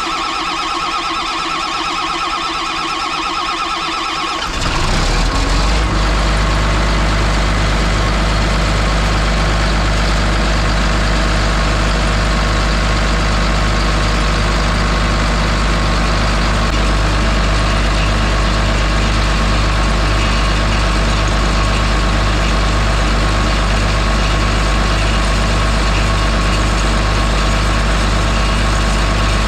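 John Deere 724J loader's common-rail diesel engine being cranked by the starter, catching about four and a half seconds in, then settling into a steady idle.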